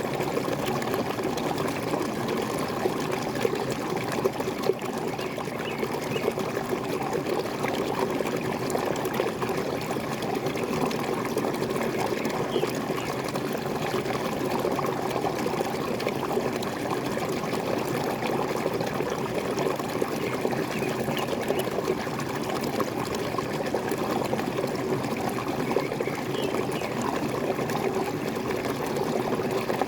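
Waterfall splashing and pouring in a steady, unbroken rush.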